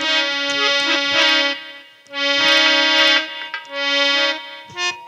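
Harmonium playing a short interlude of held reed notes and chords between sung lines, with a brief dip about two seconds in before the next phrase.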